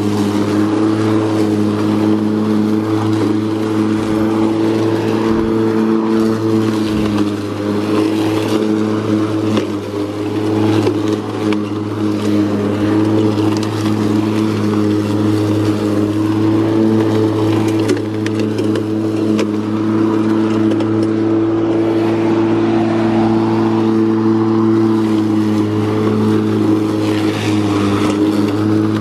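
Makita DLM382 cordless lawn mower running at a steady speed while cutting grass: a constant motor-and-blade hum, with the hiss of grass being cut over it.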